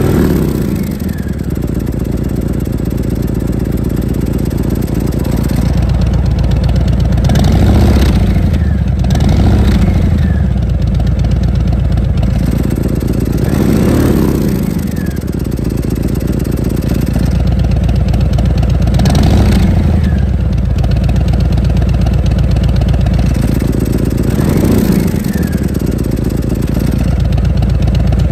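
Harley-Davidson Milwaukee-Eight 114 V-twin running through a Jekill & Hyde valved exhaust, idling with a deep uneven rumble and blipped up and back down about five times, every few seconds.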